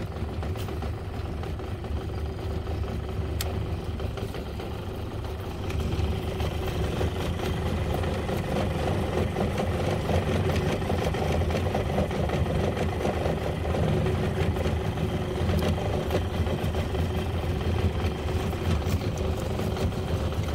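A boat's outboard motor running steadily at low speed, a constant low hum that gets louder about six seconds in.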